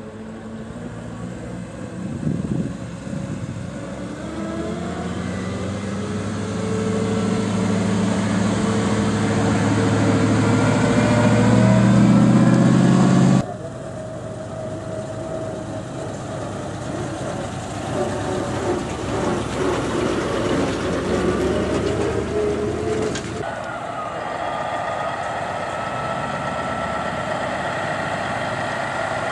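Antique trucks driving past one after another. First a 1940s Ford truck's engine, rising in pitch and growing louder as it pulls away, cut off abruptly about halfway through; then a 1930s Ford truck running by; then, after another abrupt cut, the steady run of a long-nose Peterbilt tractor's diesel.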